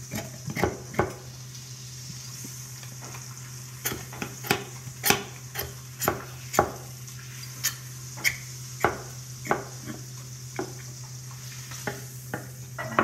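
Boning knife scraping meat and membrane off a beef rib bone to french it, in a series of irregular sharp scrapes and clicks of the blade on the bone. A steady low hum runs underneath.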